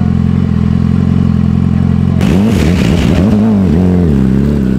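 BMW S1000RR's inline-four engine idling steadily. About two seconds in it is revved up and down repeatedly as the bike is ridden, with a rushing hiss of tyres and snow over the engine.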